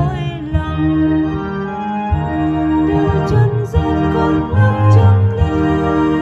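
Two-manual electronic organ played with both hands: held chords over a bass line, the notes changing every second or so.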